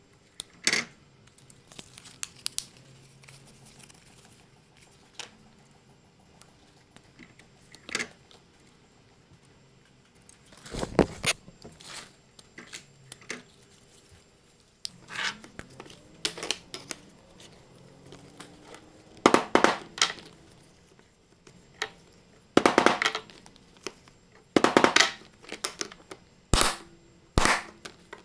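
Brass snaps being set into leather wallet panels with a hand lever press: irregular sharp clacks and knocks of the press and hardware, several in quick clusters, with leather and small parts being handled between them.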